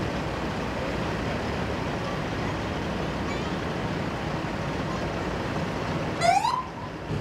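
Heavy-haul truck's diesel engine running low and steady amid street noise as the rig rolls slowly past. About six seconds in, a spectator gives one loud, rising whoop.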